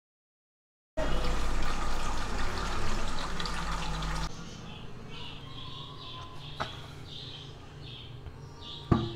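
Tap water running hard into a stainless-steel bowl, filling it, starting about a second in and stopping abruptly after about three seconds. Then quieter: birds chirping repeatedly in the background, a faint click, and a sharp knock near the end.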